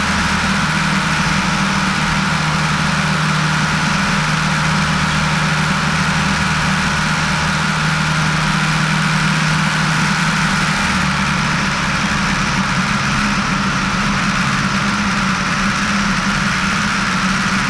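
Piper PA-18-150 Super Cub amphibian's 150 hp Lycoming four-cylinder engine and propeller droning steadily in flight, over a steady hiss. The low drone shifts slightly about eleven seconds in.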